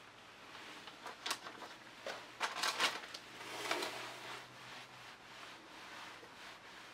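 Soft handling noises: a few light clicks and knocks of plastic in the first three seconds, then a brief soft swishing scrape of a tool spreading wet medium across the canvas.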